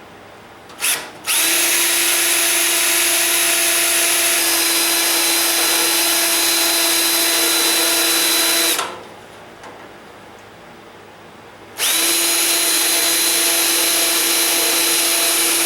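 Electric drill on high speed, spinning the center drill bit of a Rotabroach spot-weld cutter to drill small divots into the spot welds of a sheet-steel core support. After a brief blip, it runs steadily for about seven seconds, stops for a few seconds, then runs again for about four more.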